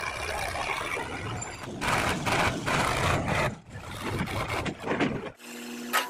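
Diesel engines of a Sonalika DI 42 tractor and a JCB 3DX backhoe loader running as the backhoe loads soil, with louder noisy stretches about two and three seconds in. The sound changes abruptly several times, and near the end there is a steadier engine hum.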